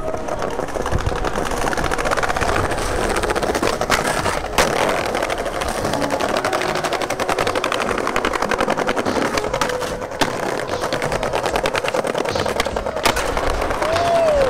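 Skateboard wheels rolling over paving, a fast continuous clatter, with a few sharp knocks of the board.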